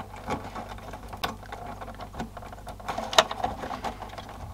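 Irregular small clicks and rustles of plastic wiring-harness connectors and wires being handled and pressed onto a circuit board, with one sharper click about three seconds in.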